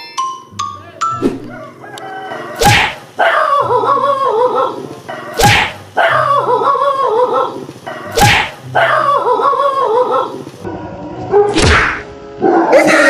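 A looped sound effect: a sharp crack followed by about two seconds of a wavering, pitched call, repeated the same way four times, roughly every three seconds.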